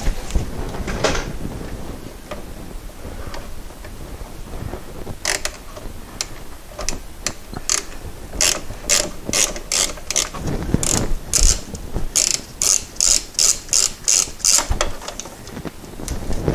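Ratchet wrench clicking in quick back-and-forth strokes as a nut is loosened and run off. The clicking starts about five seconds in at about two strokes a second and speeds up to about three a second near the end.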